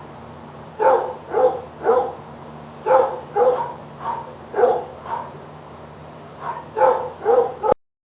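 AI-generated dog barking, synthesised by MMAudio from the text prompt "a dog barking wildly at night": a dozen or so barks in quick runs of two or three, over a faint steady low hum. It cuts off abruptly near the end.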